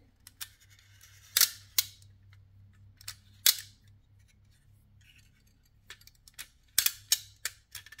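Mechanical dryer timer being turned by its knob, its cam-operated switch contacts clicking sharply at irregular intervals, with several clicks in quick succession near the end: the freshly rebuilt timer's switches are moving on all three sides as they should.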